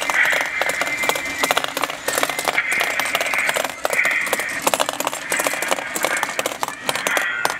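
Model mine stamp battery working, its row of small hammers rising and dropping in a rapid, uneven clatter. A high-pitched sound comes and goes in short stretches over it.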